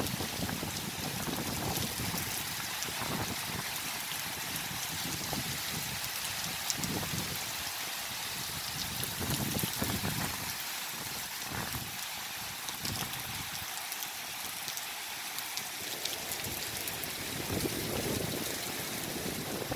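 Heavy monsoon rain pouring steadily. Low gusty rumbles of wind on the microphone come and go, easing off in the middle and picking up again near the end.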